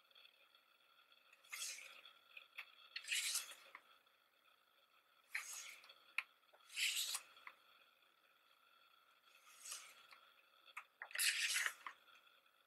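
Glossy pages of a CD album's lyric booklet being turned by hand: about six short papery swishes, one every second or two, the loudest near the end.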